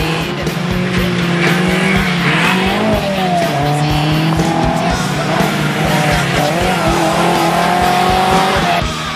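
Off-road 4x4's engine revving hard as it races over a dirt track, its pitch rising and falling. The sound cuts off abruptly near the end.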